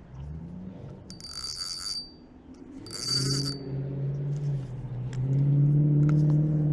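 Motor vehicle engine humming, rising in pitch at first and then holding a steady drone that grows louder. Two short, high hissing squeals break in about a second apart.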